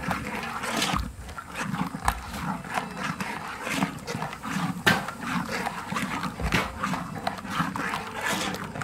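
Metal spatula scraping and knocking against a wok in quick, repeated strokes as a chili paste is stirred and fried.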